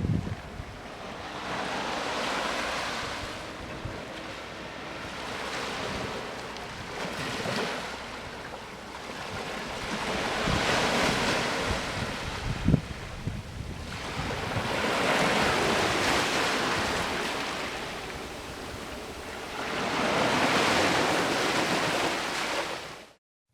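Sea waves breaking and washing up on a beach, one swell every four to five seconds, with wind buffeting the microphone. A single short knock comes about halfway through.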